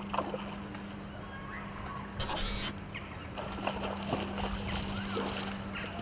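Riverbank ambience of flowing water with a steady low hum and scattered faint chirps. About two seconds in comes a brief, loud rushing hiss lasting half a second.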